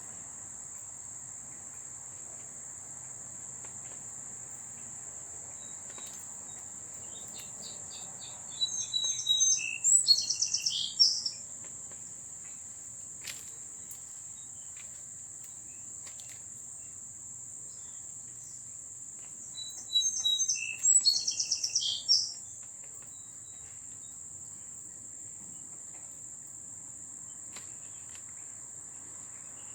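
A songbird sings the same quick, warbling phrase twice, about eleven seconds apart, over a steady high-pitched insect drone.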